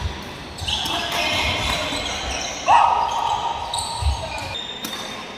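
Court shoes squeaking on the sports floor of a large indoor hall, with players' voices; about halfway through comes the loudest sound, a longer held tone of over a second.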